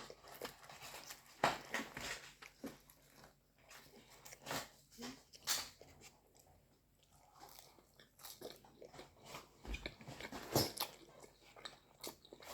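Close-miked eating: irregular bites and wet chewing of paratha and butter chicken, with scattered sharp smacks and crunches.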